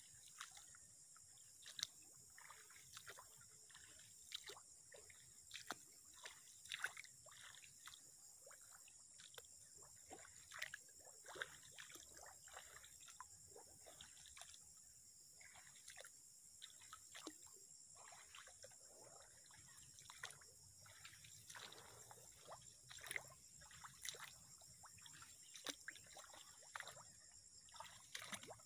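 Faint, irregular splashing and squelching footsteps wading through shallow muddy water, about one or two steps a second, over a faint steady high hiss.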